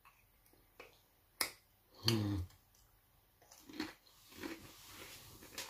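Crunching a Doritos tortilla chip: a few sharp cracks as it is bitten and chewed, the loudest about a second and a half in, with a brief low vocal sound about two seconds in.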